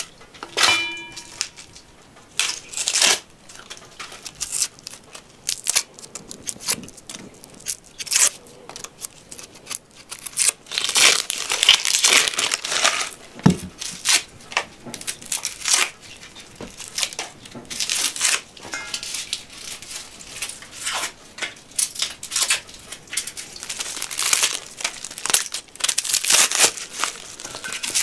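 Dry, papery onion skins crackling and tearing as they are peeled off yellow onions by fingers and a small knife, in a quick irregular run of crinkles. A short ringing clink sounds about a second in.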